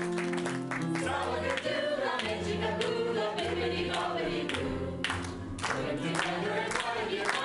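A group of voices singing a song together over backing music with a steady beat.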